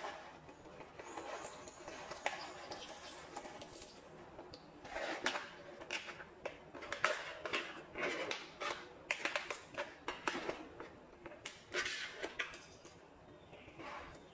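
Kitchen handling sounds as roasted pumpkin seeds are poured from a plastic bag into a glass salad bowl and the salad is tossed with a spatula: bag crinkling and a run of irregular light clicks and knocks against the glass.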